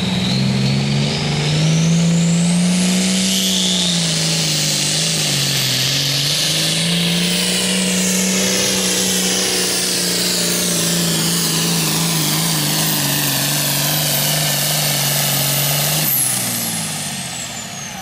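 Diesel pulling tractor at full throttle hauling a weight-transfer sled, the engine running hard with a high turbo whistle that climbs over the first few seconds and then holds. About two seconds before the end the engine is backed off and the whistle falls away as the pull ends.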